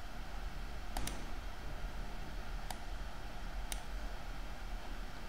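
Computer mouse clicking: a quick double click about a second in, then two single clicks about a second apart, over a low steady hum.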